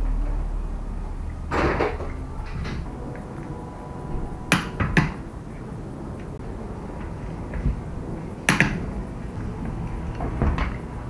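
Sharp clanks and knocks of metal tools and parts being handled and set down: a scrape about one and a half seconds in, a quick cluster of clanks about four and a half seconds in, and one more about eight and a half seconds in.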